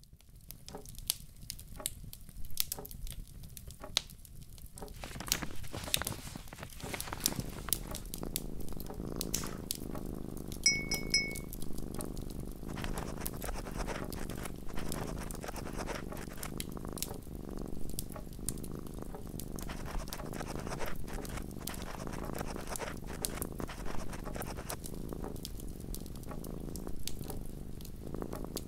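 Wood fire crackling in a fireplace: irregular pops and snaps, with a steady low rumble of flames building in after about six seconds. A brief clear ring sounds once, around eleven seconds in.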